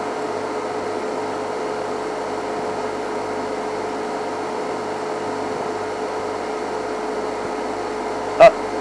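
A steady mechanical hum with a constant whine running through it. A single short, loud sound near the end.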